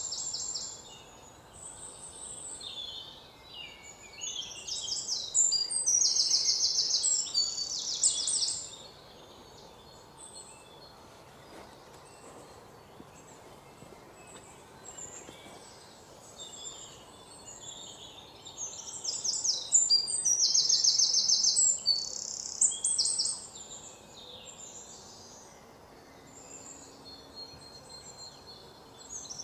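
Birds chirping and trilling in high, quick runs of notes. They are loudest in two stretches of a few seconds each, with softer, scattered calls between.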